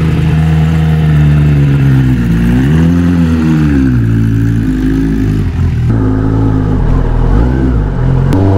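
Kawasaki Ninja ZX-10R's 998 cc inline-four engine running at low road speed, the revs rising and falling as the rider opens and closes the throttle, once strongly about three seconds in and again more gently near the end.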